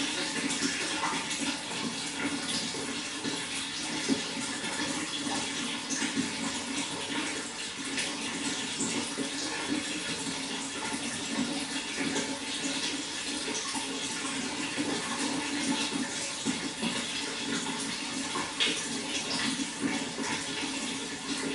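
Water flowing steadily, a continuous rushing with small splashes.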